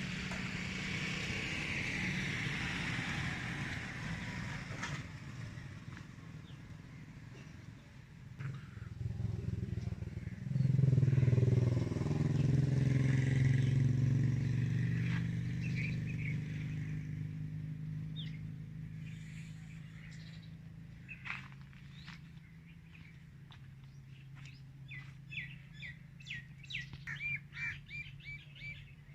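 A vehicle engine running, loudest about eleven seconds in and then slowly fading away. Birds chirp over it near the end.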